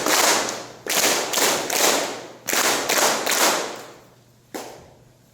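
Masonic grand honors given three times three: a roomful of brethren clapping in unison in sets of three, the sets about a second and a half apart. One lone, weaker clap or thump comes near the end.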